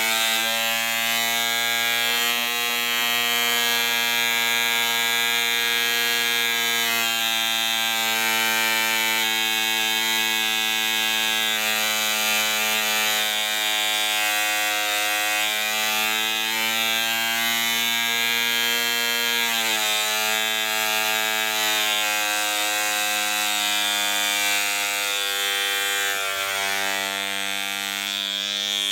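AM 15 model-aircraft diesel engine running at speed on a test stand with its propeller turning, a steady high-pitched buzz. The pitch dips briefly about two-thirds of the way through, then steadies, and shifts again near the end.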